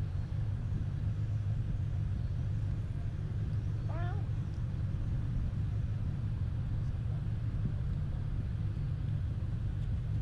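Steady low rumble of a vehicle on the move, with a brief wavering chirp about four seconds in.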